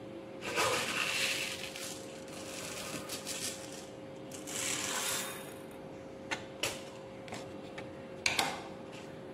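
Kitchen handling noises: a stretch of grainy rustling and rattling about half a second in and again near five seconds, then a few short sharp clicks and knocks around six and a half and eight seconds, over a faint steady hum.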